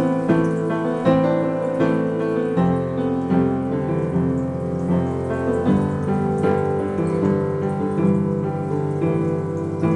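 Piano being played: chords ring on over a deep bass line, with notes struck at a steady pulse of about two or three a second, and the bass changes every few seconds.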